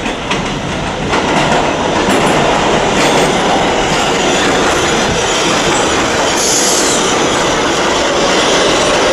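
R142A/R188 subway train pulling into the station and passing close by: loud steady rumble of steel wheels on the rails, with clicks over the rail joints. A brief high-pitched squeal comes about two-thirds of the way through, and a faint whine falls in pitch near the end as the train slows.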